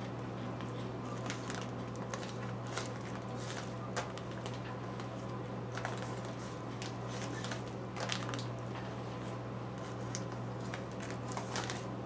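Plastic bag of brown sugar crinkling and rustling in short, scattered bits as a spoon scoops and packs the sugar, over a steady low hum.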